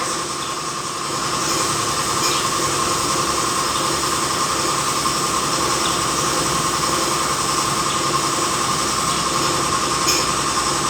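A steady mechanical hum, like a motor or engine running without change, with a couple of faint clicks.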